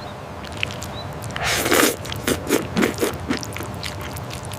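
Crunching and scraping sound effects: one longer scrape about one and a half seconds in, then about five short crunches in quick succession, over a steady background hiss.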